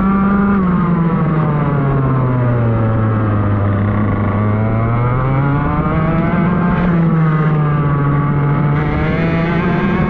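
Racing kart's engine heard on board. Its revs fall from about half a second in to a low point around four seconds in, climb again, dip briefly near seven seconds, and rise once more near the end.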